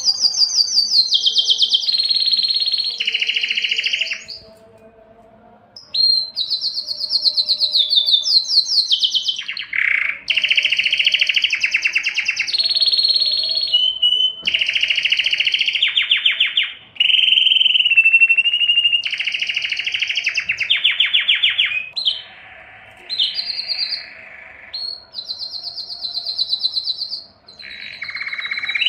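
Male domestic canary singing its breeding-season song: a long run of rapid trills, each fast-repeated phrase lasting a second or two before it switches to another at a higher or lower pitch. There is a short break about four seconds in.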